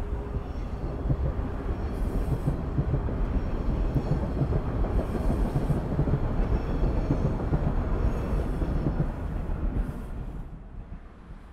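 Elevated subway train running along its track, a heavy low rumble that builds and then fades away about ten seconds in.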